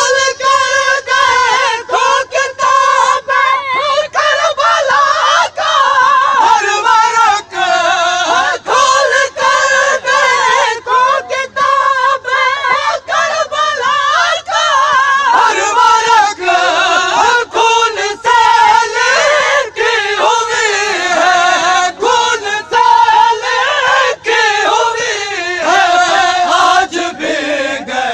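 Men's voices chanting an Urdu noha (Shia lament) together in long, wavering held notes, loud and continuous.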